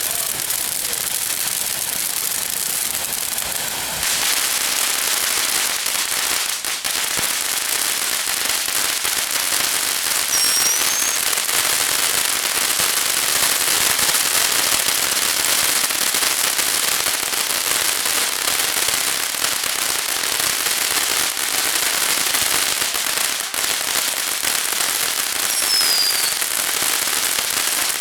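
A ground firework fountain spraying, a steady dense hissing crackle that gets louder about four seconds in, with no separate bangs. Two brief faint whistles glide through it, one around the middle and one near the end.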